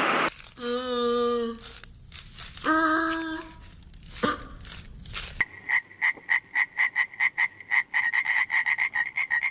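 Animal calls: two short, even-pitched calls, then a rapid run of pulsed croaks, about five a second.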